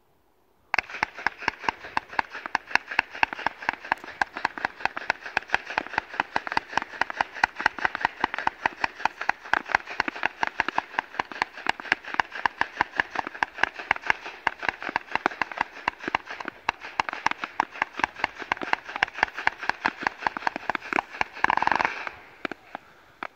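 A category 4 firework cake firing. It starts about a second in with a fast, continuous run of sharp cracks and bangs, several a second, for some twenty seconds. Near the end comes a louder burst, and then it dies away to a few last cracks.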